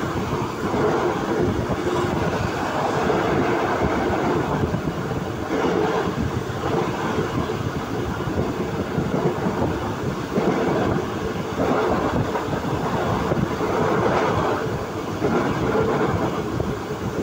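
Passenger train running at speed, heard from an opening in the side of the car: a steady noise of the wheels on the rails that swells and eases every second or two.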